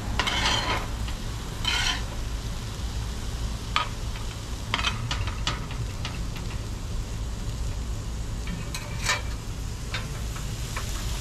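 Vegetables sizzling on a hot griddle while metal spatulas and a spoon stir them, scraping and clicking against the griddle plate several times.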